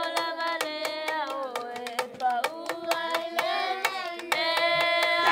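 A group of children singing together in long held notes, over fast, even hand claps. Near the end they hold one long note.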